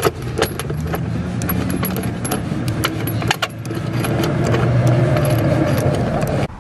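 Small metallic clicks and clinks, scattered and irregular, as a nut and washer are threaded by hand onto a harness bar leg's mounting bolt. Under them runs a steady low hum.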